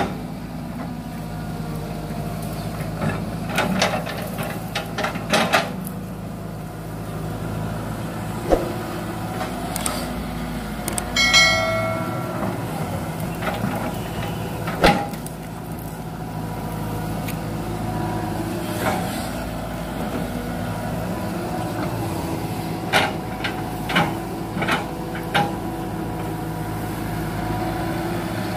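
Hitachi hydraulic excavator's diesel engine running steadily under work. Sharp knocks and cracks come at irregular intervals as it handles the felled rubber trees, and there is a brief high ringing tone about eleven seconds in.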